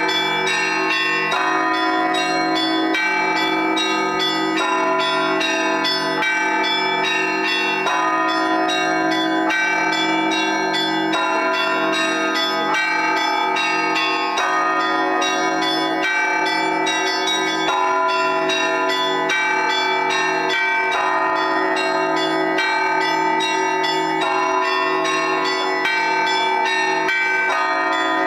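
Orthodox church bells rung in a continuous Easter peal: small bells struck rapidly, several strokes a second, over the sustained ringing of larger, deeper bells.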